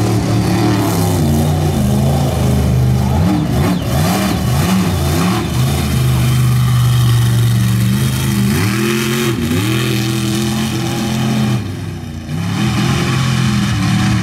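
Mud bog truck's big engine revving hard, its pitch climbing and dropping again and again, with a short lull about twelve seconds in.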